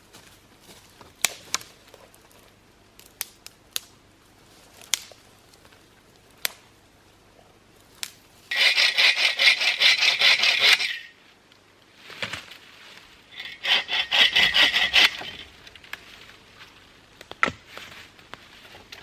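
Hand saw cutting wood in two bouts of quick strokes, about two and three seconds long, near the middle. Scattered sharp clicks and knocks come before them.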